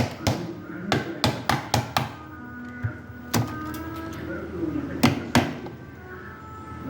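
A quick run of sharp taps or knocks, about three a second, for the first two seconds, then three more single knocks spaced out over the rest.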